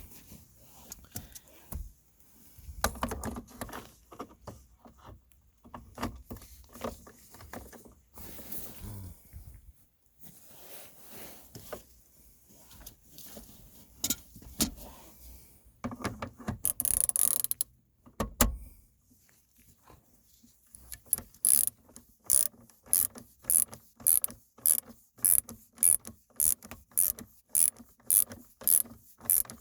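Hand ratchet wrench tightening a bolt: scattered clicks and knocks at first, then from about twenty seconds in a steady run of ratcheting strokes, about two a second.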